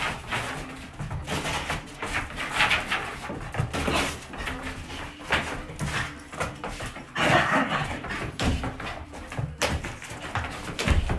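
Bull terrier making excited play noises in irregular bursts a second or two apart.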